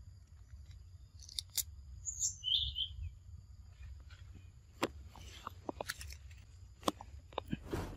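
A small bird chirps twice, about two seconds in. In the second half there is a scatter of sharp ticks and rustles as macaques scamper over stone slabs and dry leaf litter.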